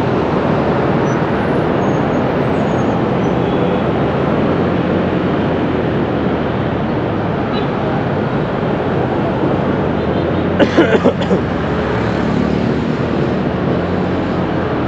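Busy city street traffic: vehicle engines running with steady road noise. A quick cluster of sharp knocks about ten and a half seconds in.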